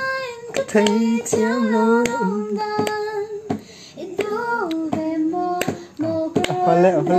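A young woman singing a song, holding long sliding notes, over a strummed acoustic guitar, with sharp strums between phrases.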